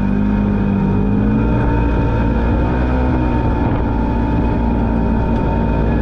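Polaris General XP4 UTV's 999 cc twin-cylinder engine and belt drive running at a steady speed while driving on the trail. There is a thin steady whine above the engine note.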